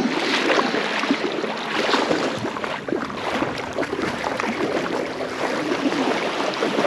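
Shallow seawater lapping and sloshing close to the microphone, with many small irregular splashes.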